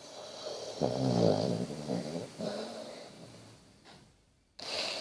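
Basset hound snoring: a low, pitched snore about a second in and a shorter one after it, then a brief pause and a hissing breath near the end.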